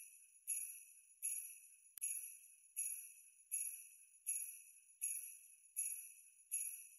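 Jingle bells shaken in a steady rhythm, about four shakes every three seconds, each a bright high jingle that rings out and fades before the next.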